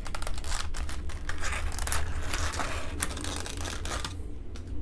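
Plastic and cardboard packaging of a model airplane being handled: a run of irregular light clicks, rustles and scrapes over a steady low hum.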